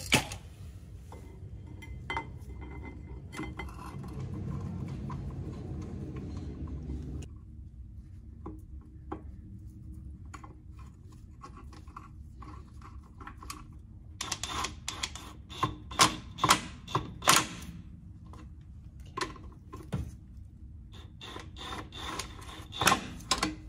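Metal clinks, knocks and rubbing as a 2007 Toyota 4Runner's rear brake caliper is worked onto its mount over the rotor and its bolts are fitted. A low rubbing sound fills the first several seconds; in the second half there is a run of sharp clinks.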